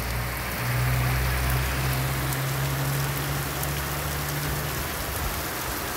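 Heavy, torrential rain falling steadily, a dense even hiss of downpour. A steady low hum runs under it and stops about five seconds in.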